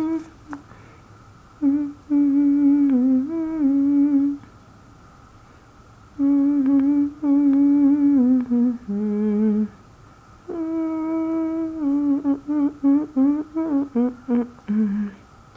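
Someone humming a slow tune to themselves in three phrases, with short pauses between them.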